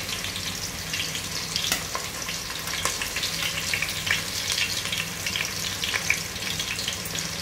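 Chopped onion and fresh green garlic frying in hot oil: a steady sizzle full of small pops and crackles.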